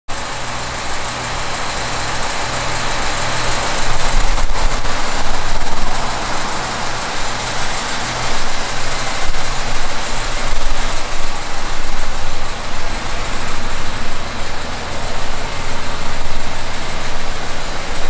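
A vehicle engine running steadily under a loud even hiss, with a low hum. It grows louder about four seconds in.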